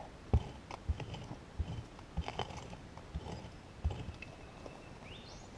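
Prospecting pick chopping into gravelly soil: about six dull, crunching strikes at irregular intervals over the first four seconds as a metal-detector target is dug out, then quieter scraping. A faint rising whistle near the end.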